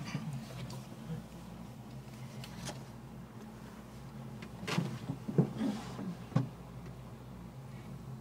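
Aerial tramway gondola cabin running along its cable, heard from inside: a steady low hum, with a cluster of knocks and rattles about five to six and a half seconds in.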